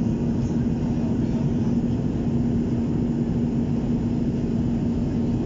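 Jet airliner cabin noise in flight: the turbofan engines and rushing air make a steady, even noise with a constant low hum.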